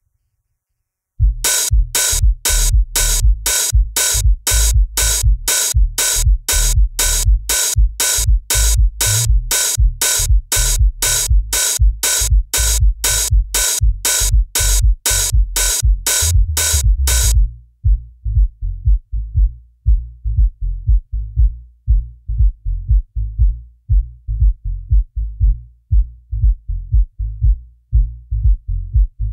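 Electronic music with a drum-machine beat: sharp, bright hits about twice a second over heavy bass start about a second in. About two-thirds of the way through, the high hits drop out and only a pulsing bass beat continues.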